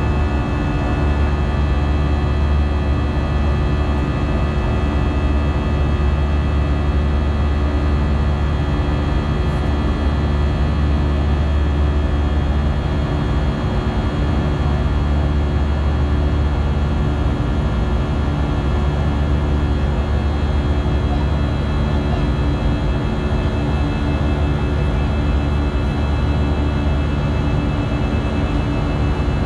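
Airbus A320-family airliner's CFM56 turbofan engines running at climb thrust, heard from the cabin over the wing: a steady, loud drone with a cluster of held tones, the buzzsaw noise of the fan-blade tips.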